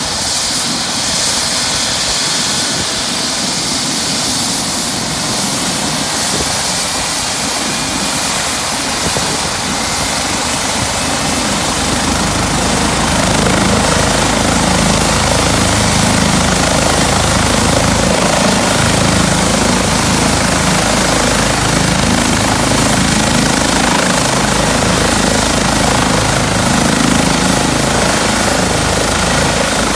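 Eurocopter EC135 medical helicopter running on the ground with its main rotor turning, its turbines giving a steady high whine. About twelve seconds in, a deep rotor beat comes in and the sound grows louder.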